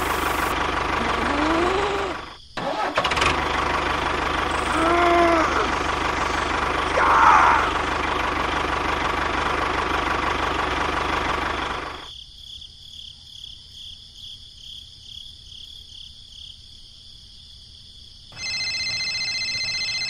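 A vehicle engine running steadily, with a brief cut-out about two and a half seconds in. At about twelve seconds the engine sound gives way to a much quieter passage with a faint repeating high tone, and near the end a steady high-pitched tone starts.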